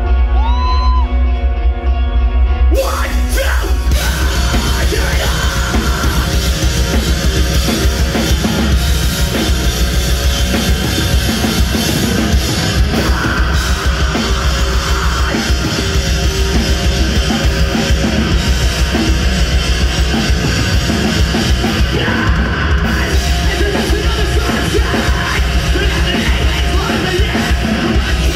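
Live heavy rock band playing a song: a sparse intro of held tones, then drums, distorted electric guitars, bass and vocals come in together about three seconds in and play on loud, recorded from the crowd.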